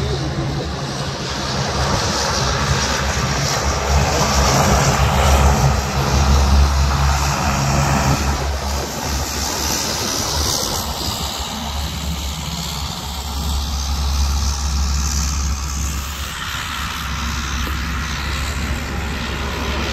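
Regional Express twin-turboprop airliner's engines and propellers running on the airfield: a steady, loud low drone under a hiss. It swells a few seconds in, then holds.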